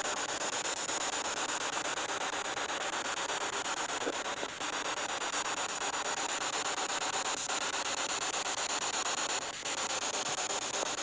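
Spirit box radio sweeping rapidly through stations: a steady hiss of static chopped many times a second, with two brief dips.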